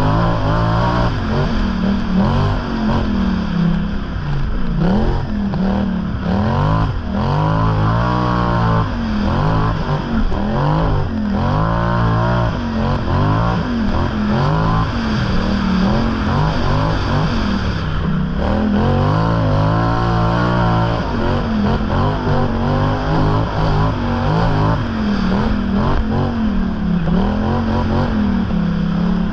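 An off-road vehicle's engine revving up and dropping back over and over, its pitch climbing and falling every second or two, over a steady low rumble.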